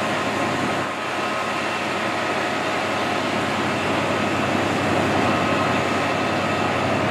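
Class 68 diesel locomotive working under power as it hauls a train slowly away from the platform, a steady engine note with a few held tones, growing a little louder.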